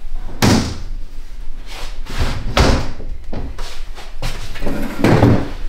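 Glass-paned wooden doors of a china cabinet being shut, with about three knocks and thuds and some handling noise between them.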